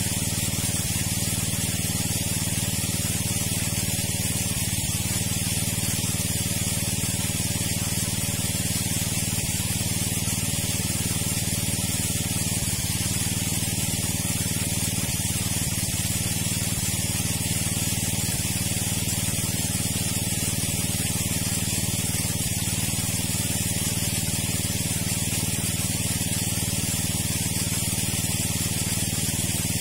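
Water pump running steadily, a constant hum under a loud, even hiss of rushing water as the pond is pumped down.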